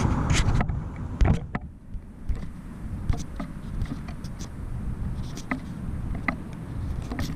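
Outdoor background of low traffic and wind rumble, louder at first and dying down over the first couple of seconds, with a few faint clicks and taps scattered through it.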